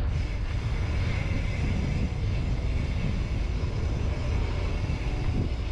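Steady low wind rumble on the microphone, with rolling noise from a mountain bike being ridden along a trail.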